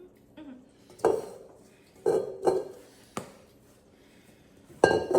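Kitchen utensils and containers knocking and clattering on a counter and mixing bowl while ingredients are measured: five separate knocks, the loudest near the end with a short ring.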